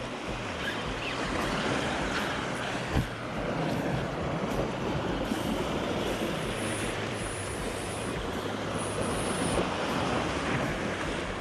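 Steady rushing noise of sea surf and wind on the microphone, with a single sharp knock about three seconds in.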